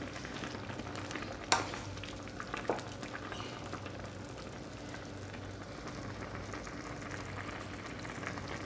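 Chicken sotanghon noodle soup simmering in a pan, a steady bubbling, with a wooden spatula stirring it and knocking against the pan twice in the first few seconds.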